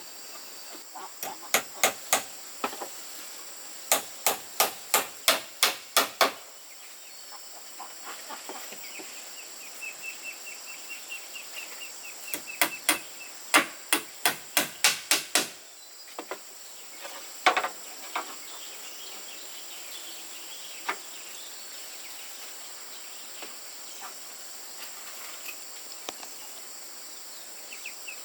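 Hammer driving nails into wood, in runs of quick, even blows about three or four a second, with a few single knocks later. Behind it is a steady high insect drone, and a short chirping trill comes about ten seconds in.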